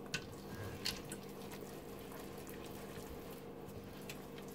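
Coated wire whisk stirring down thick, mostly gelled hot-process soap in a stainless steel pot. The stirring is faint, with a few light clicks of the whisk against the pot near the start, about a second in, and near the end.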